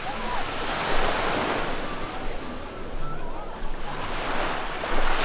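Waves breaking and washing up the beach, the rush swelling about a second in and again near the end, with faint voices in the background.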